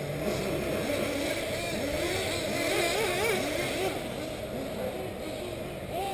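Several 1/8-scale nitro RC buggy engines whining at high pitch, their pitch rising and falling over and over as the buggies accelerate and back off around the track.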